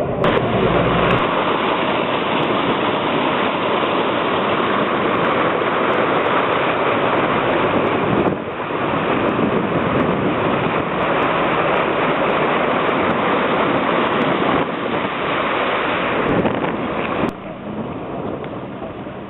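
Steady rushing noise of a car driving through floodwater, its tyres throwing up water spray, mixed with wind buffeting the microphone. The noise dips briefly about eight seconds in and falls lower near the end.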